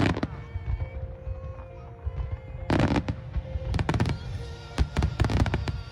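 Aerial fireworks bursting in quick clusters of sharp bangs and crackles, with music in the background.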